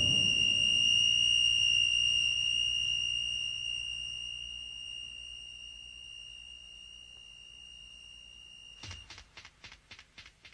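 Deep rumble of an atomic bomb explosion dying away under a steady, high-pitched ringing tone. About nine seconds in, the tone cuts off suddenly and a quick run of faint pulses, about six a second, fades out.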